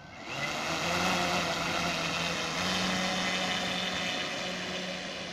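Radio-controlled model aircraft engine and propeller revving up and then running steadily at full throttle for a takeoff run, easing slightly as it pulls away.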